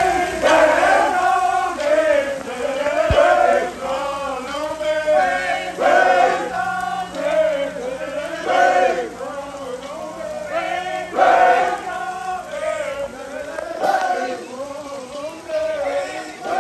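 A large group of marching band members singing together in a chant-like chorus, phrase after phrase.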